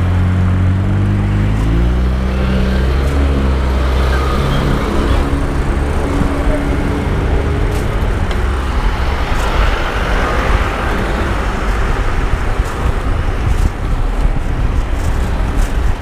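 Street traffic heard from a moving bicycle, with a motor vehicle's engine nearby rising in pitch over the first few seconds as it speeds up. A steady rush of road and air noise runs underneath.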